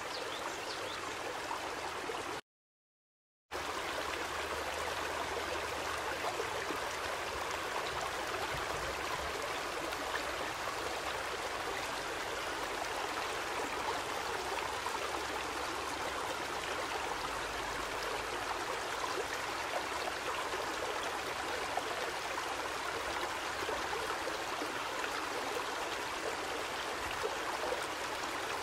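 Steady rushing of a shallow river's flowing water, even and unbroken. It cuts out completely for about a second, two and a half seconds in, then resumes.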